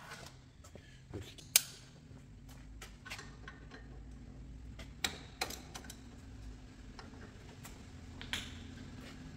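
Hand tools clinking and knocking on metal while an air-cooled VW Beetle engine is taken apart: scattered sharp metallic clicks at irregular intervals, the loudest about a second and a half in, a pair about five seconds in and another near the end.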